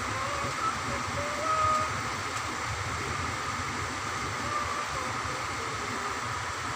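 Newborn kittens mewing: a few short, thin squeaks, the loudest about a second and a half in, over a steady rushing background noise.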